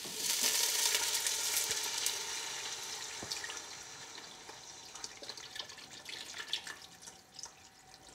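Vegetable broth pouring from a carton into a stainless steel pot of hot sautéed onion, garlic and squash, splashing and sizzling as it hits the hot pan. Loudest in the first couple of seconds, then fading as the pour goes on.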